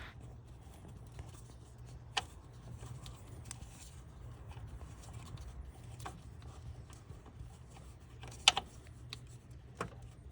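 A faint steady low hum with a few scattered sharp clicks or taps, the loudest one near the end.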